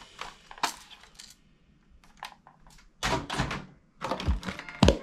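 Hard plastic toy guns clacking and knocking against one another as they are handled and set down in a box full of plastic toys: a run of separate clicks and knocks, with a denser cluster about three seconds in.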